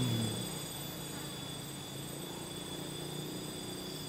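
Insects trilling steadily, several high-pitched tones held without change over a faint hiss.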